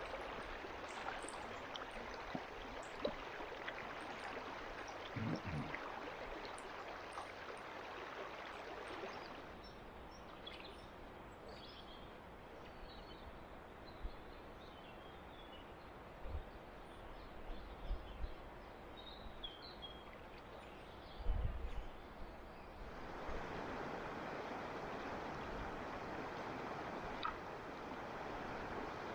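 Steady rush of river water over a shallow riffle. For a stretch in the middle the water is fainter, and small high chirps of birds and a few low thumps come through.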